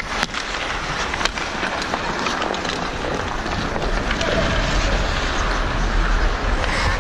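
Ice hockey skate blades scraping and gliding on the ice, heard from a camera worn by the skating referee, with a few sharp knocks early on and a low rumble growing about four seconds in.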